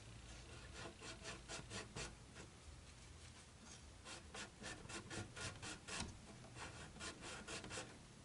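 Faint, quick rubbing strokes in runs of about four a second, with short pauses: hide glue squeeze-out being cleaned off along the freshly glued, clamped binding of an acoustic guitar.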